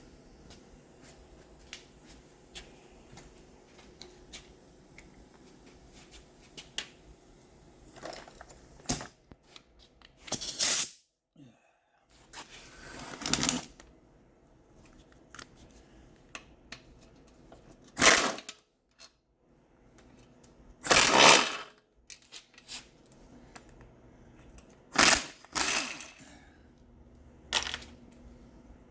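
Pneumatic impact wrench fired in short bursts, about six of them in the second half, between light clinks and clicks of metal transmission parts being handled.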